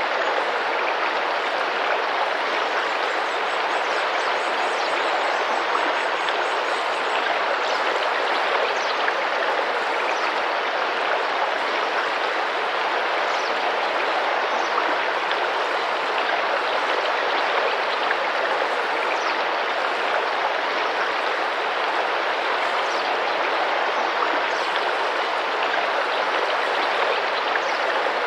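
Rainforest river water running and splashing in a steady, even rush, with a few faint high bird chirps now and then above it.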